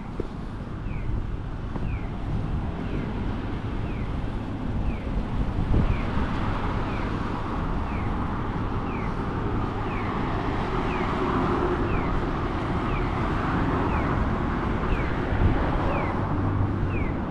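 Road traffic on a city street, swelling as vehicles pass, with a short high falling chirp repeating about once a second.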